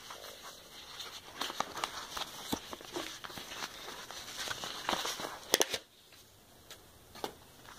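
Bubble-wrap packaging being handled and crinkled by hand, with irregular crackles and clicks and one sharper click before it goes quieter near the end.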